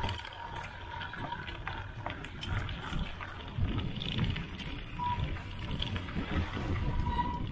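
Mountain bike riding down a dirt singletrack: steady tyre rumble over the dirt, with scattered knocks and rattles from the bike over bumps.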